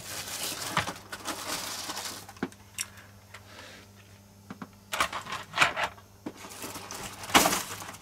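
Model railway coach and its packaging being handled: plastic wrapping rustles and crinkles, with light clicks and knocks as the plastic coach and the cardboard box tray are moved. The sharpest knock comes near the end.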